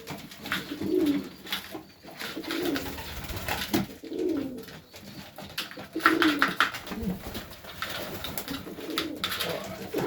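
Melbourne Highflyer pigeons cooing over and over, short low coos about once a second, with scattered light clicks.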